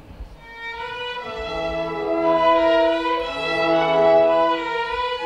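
Theatre orchestra playing with violins to the fore: long held chords come in softly about half a second in and swell to full strength by about two seconds.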